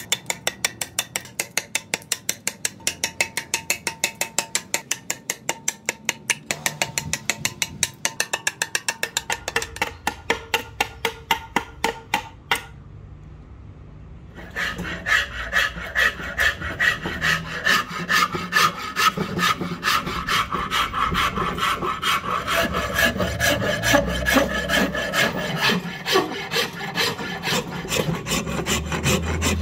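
Machete blade chopping into a wooden axe-handle blank in rapid, evenly spaced strokes. After a short break, a flat metal file rasps back and forth along the wooden handle.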